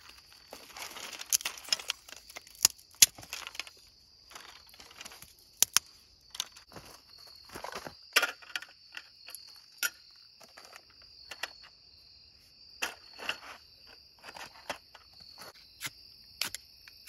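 Dry driftwood sticks and kindling clicking and snapping in scattered sharp bursts as they are handled and stacked into a fire lay, over a steady high insect trill, like crickets.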